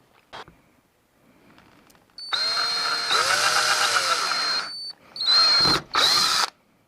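Cordless drill running: one long run of about two and a half seconds, its whine dipping and recovering in pitch as it bites, then two short bursts.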